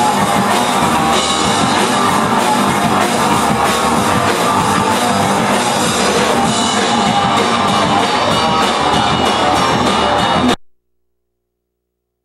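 Loud rock music with a drum kit, cutting off abruptly about ten and a half seconds in, followed by dead silence.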